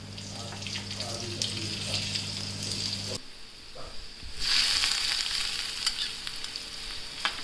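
Chopped onions sizzling in a frying pan, with a spoon scraping and stirring. About four and a half seconds in, a ladle of hot tadka (fat and cumin seeds) is poured in and the sizzle jumps to a loud hiss.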